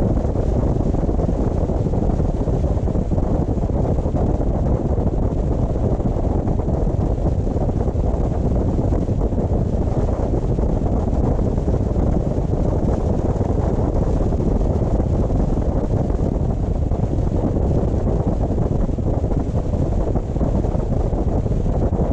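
Steady road and wind noise of a car being driven, an even low rumble with no changes.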